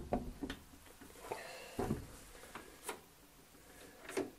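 Scattered knocks and clicks of a Singer 201-2 sewing machine head being handled and seated into its wooden treadle cabinet, with a short high squeak near the middle.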